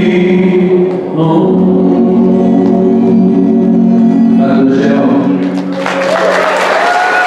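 Three voices, two men and a woman, singing with an acoustic guitar, closing the song on one long held chord. Applause breaks out about six seconds in as the chord ends.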